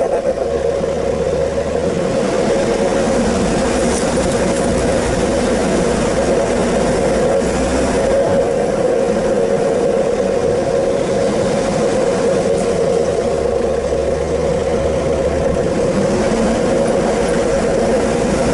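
4WD vehicle driving steadily up a dirt track, its engine running under load with a steady drone and tyre noise on the dirt.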